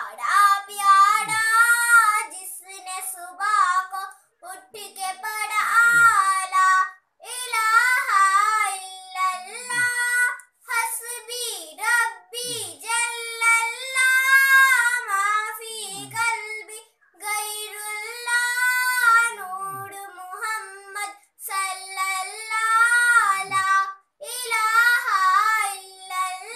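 A young girl singing a naat unaccompanied, in melodic phrases of a few seconds each with short breaks for breath.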